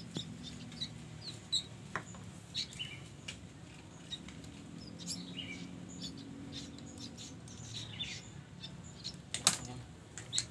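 Young sooty-headed bulbul chicks give short, scattered high chirps, with a few fluttering clicks, as they are hand-fed: begging calls of nestlings at feeding.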